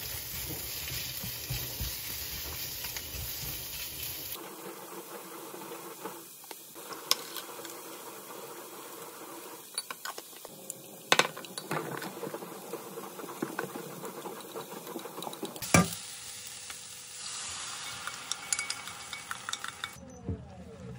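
Sliced onions sizzling in a nonstick wok while a spatula stirs them. After about four seconds the sound changes to chopsticks stirring seasoning in a glass bowl, with a few sharp clinks against the glass. Later the sauce sizzles in the wok again.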